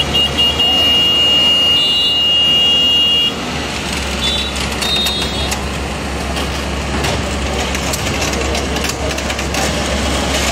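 Engine of a mobile crane running steadily as it lifts a load onto a truck. A high steady tone sounds for about the first three seconds, with a few short higher beeps around two, four and five seconds in.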